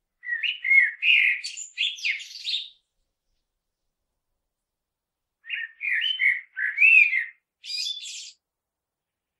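Common blackbird singing two song phrases a few seconds apart. Each is a run of fluty, gliding whistled notes, and the second ends in a higher, thinner twitter.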